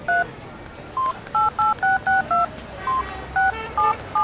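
Mobile phone keypad tones (DTMF) as someone keys in a text message: about a dozen short two-tone beeps in uneven runs, with short pauses between them.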